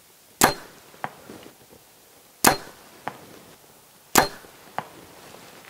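Three bow shots, each a sharp snap of the bowstring on release, followed about half a second later by a fainter smack as the arrow strikes a 3D foam archery target. The shots come about two seconds apart.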